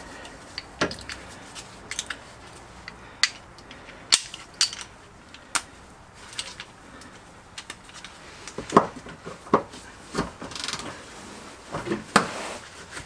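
Hand tools and metal parts clinking and knocking in an irregular run of sharp clicks, the clatter of work on a car's rear suspension.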